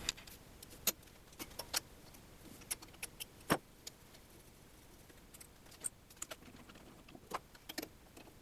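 Sparse, light clicks and clinks of metal tools and parts being handled while an air die grinder is taken off a mini lathe's cross slide and the 3-jaw chuck is worked on by hand. The sharpest clink comes about three and a half seconds in.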